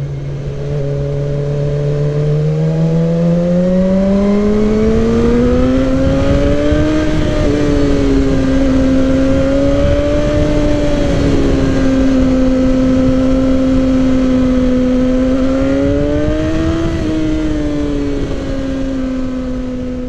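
Suzuki GSX-R sport bike's inline-four engine heard from the rider's seat while riding. Its pitch climbs steadily over the first several seconds as the bike speeds up, then holds at a cruise, rising briefly and easing off again near the end, over a low rumble of wind.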